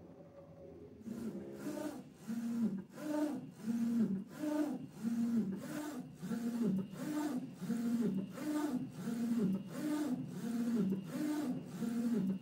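A3 dual-head UV flatbed printer printing: the print-head carriage shuttles back and forth across the bed, its motor tone rising and falling with each pass, about every three-quarters of a second. It starts about a second in.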